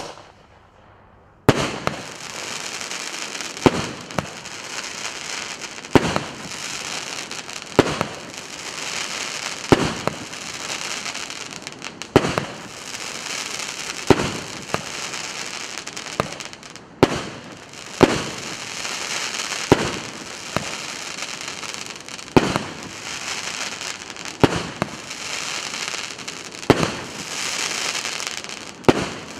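A 19-shot, 30 mm (1.2-inch) firework cake (Russkaya Pirotekhnika РС810) firing about one shot every two seconds. Each shot is a sharp bang, and a hissing crackle of burning stars fills the gaps between them.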